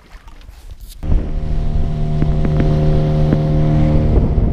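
Outboard motor on a small aluminium boat running steadily at speed. The motor comes in abruptly about a second in, after a quieter start, and near the end wind on the microphone and rushing water take over from the engine tone.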